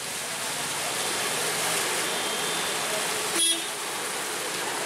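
A car's tyres pushing through ankle-deep floodwater on a street, a steady wash of splashing water, with one short horn beep about three and a half seconds in.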